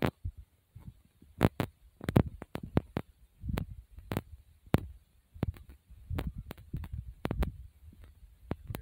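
Irregular low thumps and sharp clicks close to the microphone from a phone being carried and moved about, with no steady sound between them.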